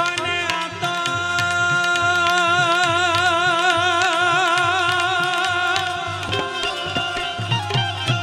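Devotional folk song (bhajan): a man's voice holds one long note with vibrato for several seconds over harmonium and tabla. After the note ends, the tabla strokes come forward near the end.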